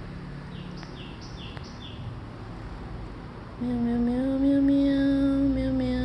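A bird chirping: a quick run of short, high notes. Then, about three and a half seconds in, a louder, long, steady hum-like tone begins and carries on.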